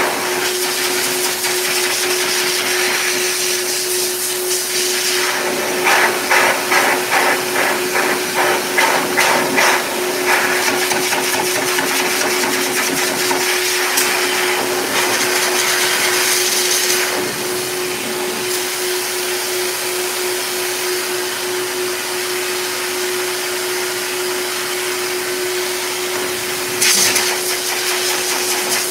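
Heavy-duty K9 forced-air dog dryer running flat out: a steady motor whine under a loud rush of air blown through a Bernese mountain dog's thick wet coat. The air rush swells and flutters as the nozzle moves over the fur, with a brief louder blast near the end.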